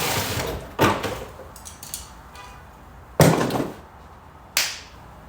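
Thumps and clunks at a Tesla Model S door: three sharp knocks about a second in, about three seconds in (the loudest, a heavy thud) and near the end.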